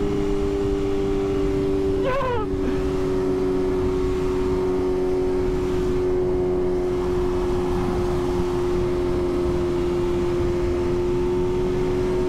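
Motorcycle engine held at a steady highway cruise, its note barely changing, under heavy wind and road rush on a helmet-mounted microphone. About two seconds in comes a short warbling sound.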